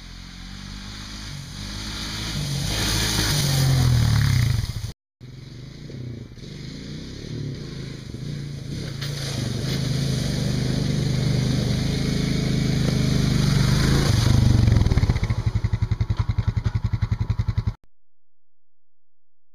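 ATV engine running as the quad approaches, growing louder, broken off by a sudden cut about five seconds in and then building again. Near the end it drops to an even pulsing chug and cuts off suddenly.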